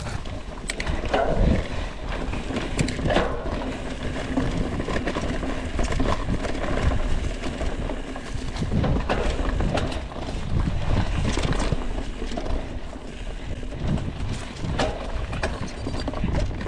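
Mountain bike riding fast over dry leaf-covered dirt singletrack: tyres crunching through leaves and the bike rattling over bumps, picked up by a handlebar-mounted camera, with a steady low rumble underneath.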